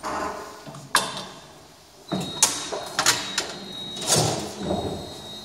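Şahveli KSM-180 kebab skewering machine at work: flat metal skewers slid in and drawn out, with sharp metallic clicks and scraping swishes, and a thin steady high whine in the second half.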